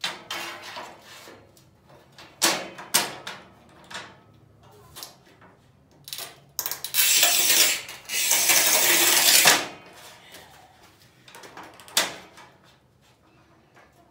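Manual tile cutter (Cortag Master 125): a few clicks and knocks as the porcelain strip is set on the bed, then the scoring wheel scratching along the porcelain tile for about three seconds, with a brief break partway. A single sharp click near the end.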